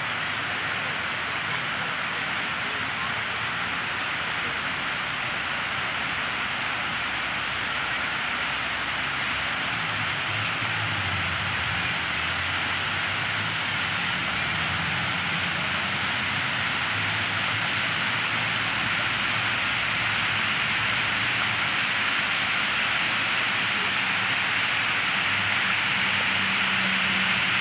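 Water cascading down a stepped fountain wall, a steady rushing splash that grows a little louder near the end.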